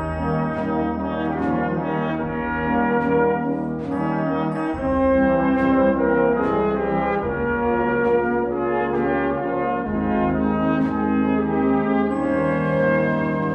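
Brass band music from a saxhorn band: several brass voices playing sustained chords in harmony, over a steady beat of strokes a little faster than once a second.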